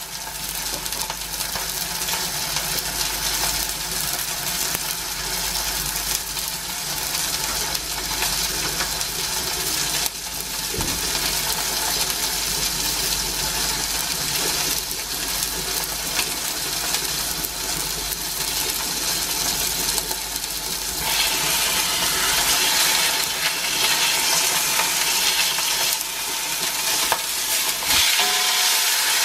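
Rump steak sizzling in hot oil in a thick-based frying pan: a steady, crackling hiss that steps up in loudness about two-thirds of the way through. Near the end the steak is turned over with tongs.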